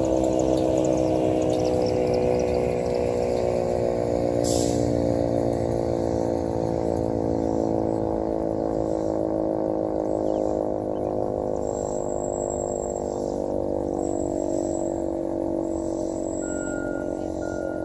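Sentry 3V8-H rotating outdoor warning siren sounding its attack signal, its tone slowly falling in pitch and fading as the siren winds down. A sharp click comes about four and a half seconds in.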